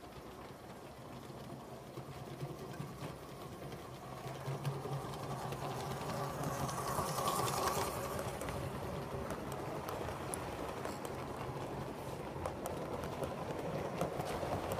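7mm-scale model train running along the track, its motor and wheels making a steady mechanical whirr with scattered light clicks. It grows louder as the coaches pass close by about halfway through, then stays steady.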